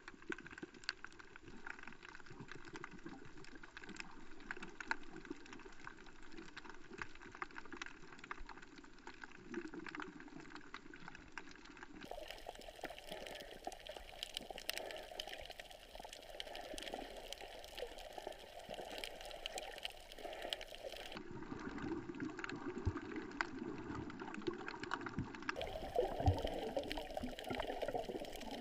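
Underwater ambience: a steady muffled water wash with dense fine crackling clicks through it, its tone shifting abruptly three times.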